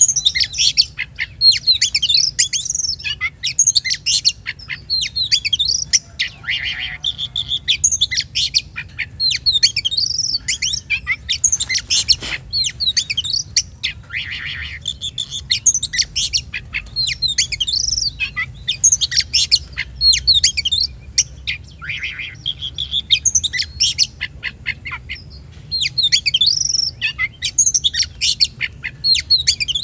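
Oriental magpie-robin (kacer) singing a fast, continuous song of varied whistles and chirps, with a few harsh, buzzy notes, over a steady low hum. It is the kind of recording played to provoke a caged kacer into singing.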